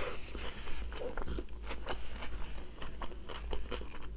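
A person chewing food up close, with many small crisp crunches through the mouthful.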